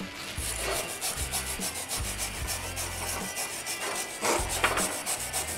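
Steel wire brush scrubbed rapidly back and forth over freshly laid weld beads on a steel plate, scouring off the slag, with a louder stroke about four and a half seconds in.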